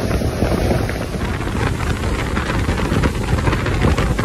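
Wind buffeting the microphone and water rushing along the hull of a bass boat running at speed, with its Mercury SeaPro 250 hp outboard under way. The noise is loud and steady.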